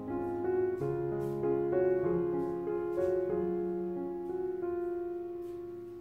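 Background piano music: a melody of piano notes changing every half second or so.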